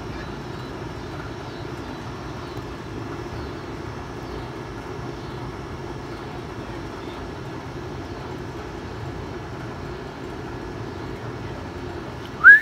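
Trane XE 1000 central air conditioner's outdoor condenser unit running, a steady hum and fan rush. Right at the end, a brief loud high whistle that rises and then falls in pitch.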